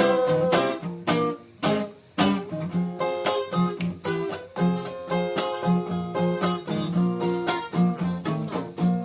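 Acoustic guitar strumming in short, choppy strokes: an instrumental passage of a reggae song cover, without singing.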